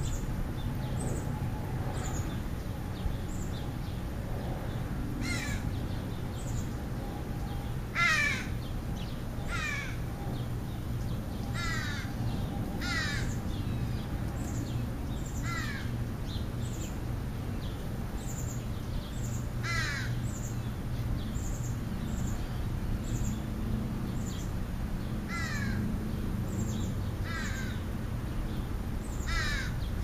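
A crow cawing repeatedly: about ten caws spread through the stretch, some coming in pairs a second or two apart. Underneath are a steady low rumble and faint, frequent high chirps.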